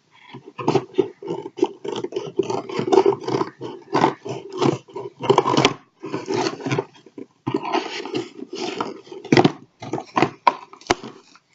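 Cardboard box packaging being cut and torn open: a rapid, irregular run of scraping and ripping, with a sharp click near the end.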